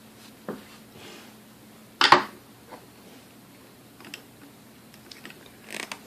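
Metal parts and tools handled on a workbench during mixer disassembly: a light knock, then a loud metallic clatter about two seconds in, and a few faint clicks.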